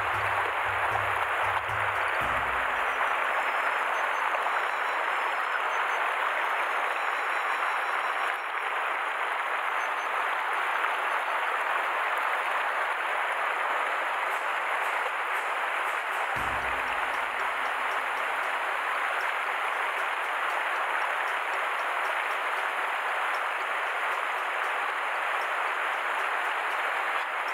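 Steady rush of river water over a riffle, with a sudden low thud about two seconds in and another about sixteen seconds in, each leaving a low hum that fades over several seconds.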